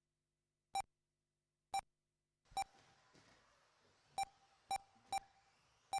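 Short electronic beeps from the race lap-timing system, about seven at irregular spacing, one for each radio-controlled car crossing the timing line to finish its first lap. A faint background hiss comes in about two and a half seconds in.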